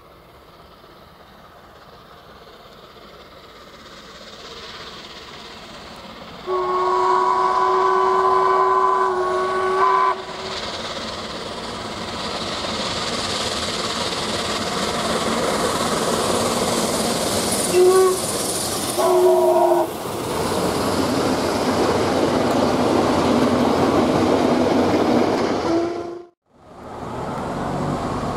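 ČSD class 477 steam locomotive approaching with its train, its running noise growing louder. Its steam whistle gives one long blast of about four seconds, then two short toots about ten seconds later, and the train runs loudly past close by. The sound breaks off abruptly near the end, and a quieter steady rumble follows.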